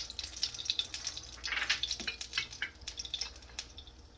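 Hot cooking oil sizzling and crackling in a frying pan on the stove, with many short, irregular pops and a small knock about two seconds in.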